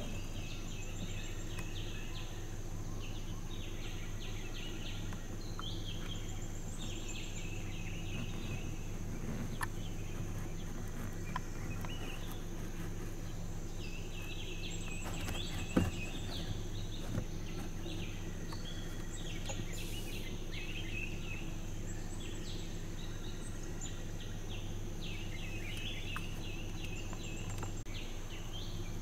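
Forest ambience: repeated bursts of fast chirping calls over a steady high-pitched insect drone and a low hum, with one sharp snap about sixteen seconds in.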